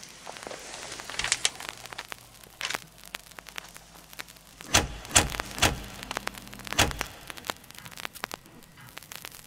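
A light crackling hiss with scattered clicks, then four heavy thumps in quick succession about five seconds in, the second the loudest.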